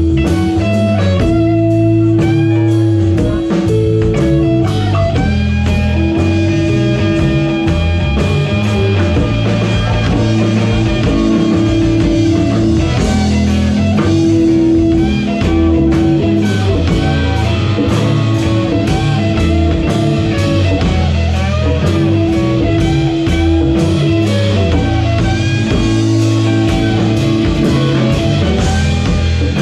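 Live instrumental blues-rock jam: electric guitar playing held and bending lead notes over electric bass and a drum kit, with no vocals.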